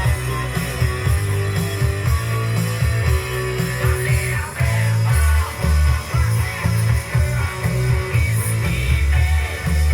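Rock music with guitar over a heavy, pulsing bass line, plausibly a record being played back on a Tesla NZC 431 turntable.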